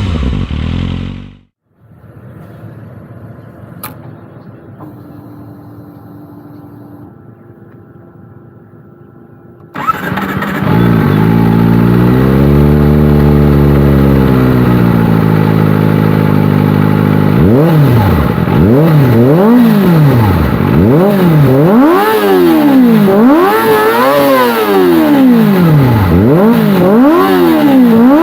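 Kawasaki Ninja ZX-25R inline-four through a long SC Project slip-on muffler, revving. A falling rev cuts off early. After a few quiet seconds the engine comes in loudly with a sharp start, goes through one slow rev up and back down, then gives a string of quick throttle blips about once a second.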